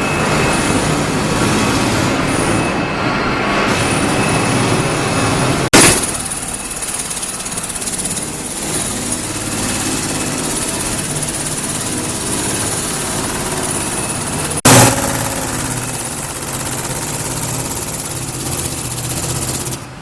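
Steady mechanical running noise, cut twice by sharp clicks where the sound changes abruptly, about six seconds in and near fifteen seconds in.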